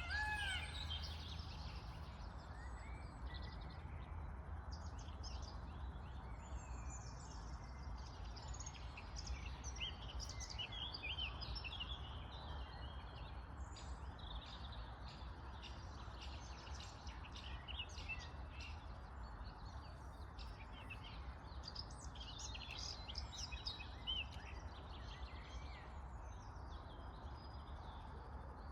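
Many wild birds chirping and calling throughout in quick, overlapping short notes, over a steady low background rumble. A louder arched, pitched call sounds right at the start.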